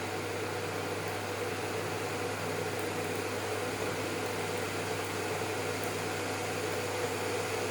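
Induction stove running on a high setting, giving a steady hum and fan-like noise while a pan of water heats to the boil.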